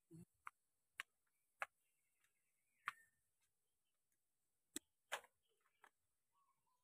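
Near silence broken by about seven sharp, irregularly spaced taps and clicks.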